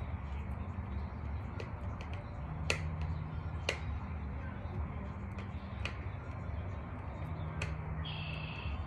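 Scattered sharp clicks and taps, two louder ones about three and four seconds in, over a steady low hum, with a short high chirp near the end.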